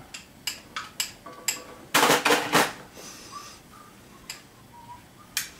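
Small mallet tapping metal parts on the main shaft inside a Bernina 217 industrial sewing machine's arm to knock them loose, with short metallic clinks and rings. There are a few single taps, then a quick cluster of four louder strikes about two seconds in, then two faint taps later on.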